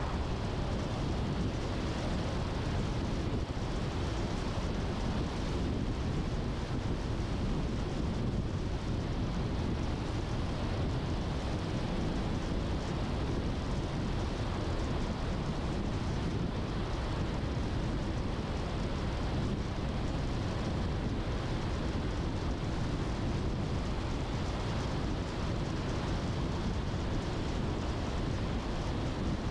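Steady road noise of a car driving along: a low rumble of tyres and engine with a hiss of air over it.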